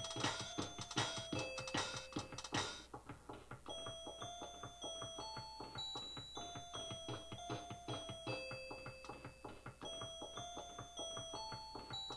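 Electronic keyboard played live over a steady electronic drum beat, with a melody of clear, held bell-like notes on top. The busier, brighter part of the beat drops out about three seconds in, leaving a thinner beat under the melody.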